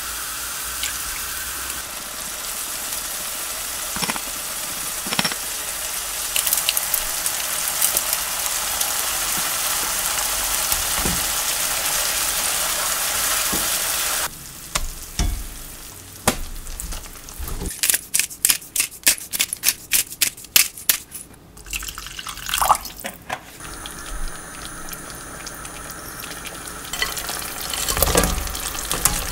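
Garlic, oil and cooking wine sizzling in a nonstick wok with a steady hiss; about halfway through the sizzling cuts off and a wooden spoon stirs and taps against the pan in a run of quick clicks. Near the end, dried filefish strips are tipped into the sauce with a rustle.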